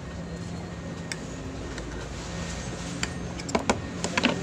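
Steady background hum with a handful of sharp clicks, the loudest clustered about three and a half to four and a quarter seconds in.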